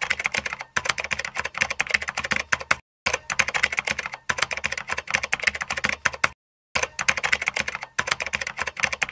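Rapid computer-keyboard typing clicks, a sound effect that keeps time with text typing out on screen. It breaks off briefly about three seconds in and again just past six seconds.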